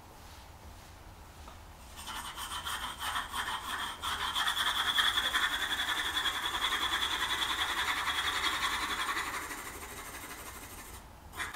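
Graphite pencil hatching on drawing paper on an easel board: rapid back-and-forth strokes scratching as tone is shaded in. It starts about two seconds in, is loudest through the middle and tapers off near the end.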